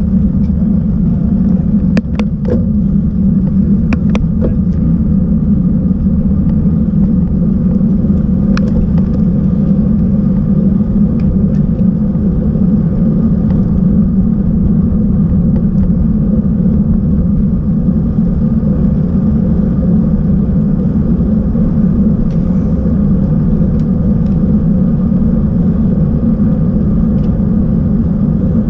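Steady low rumble of wind buffeting on a bike-mounted action camera's microphone and road-bike tyres rolling on asphalt while riding at speed. A few sharp clicks or knocks come in the first nine seconds.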